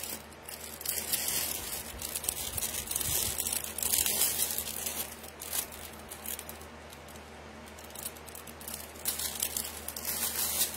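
Packaging crinkling and rustling off and on as a necklace is unwrapped by hand, busiest in the first few seconds and again near the end.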